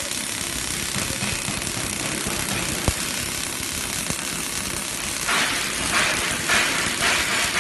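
Robotic arc welding: the welding arcs crackle and sputter steadily as they throw sparks. There is one sharp click about three seconds in, and several louder bursts of crackle in the last two seconds.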